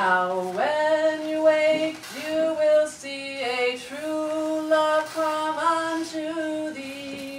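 A woman singing a wordless melody in held notes that step up and down, one note after another.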